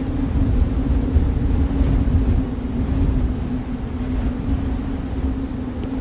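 Snowstorm wind: a deep, gusting rumble with a steady low hum over it.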